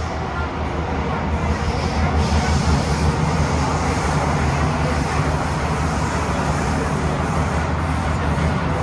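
Cabin noise of a Thomson-East Coast Line MRT train running through its tunnel: a steady low rumble with rushing noise over it, growing a little louder about two seconds in.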